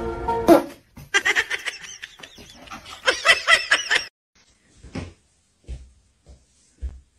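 High-pitched laughter in two choppy runs of giggles, followed by a few soft knocks.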